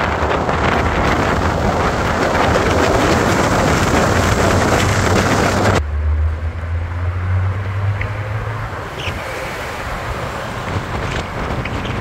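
Steady roar of rushing water from a large waterfall, with wind rumbling on the microphone. About six seconds in the sound changes abruptly to a quieter, lower rumble.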